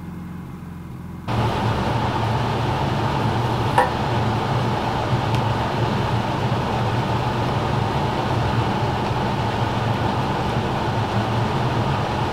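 An air conditioner running steadily inside the bus: a constant whooshing hum over a low drone. It starts abruptly about a second in.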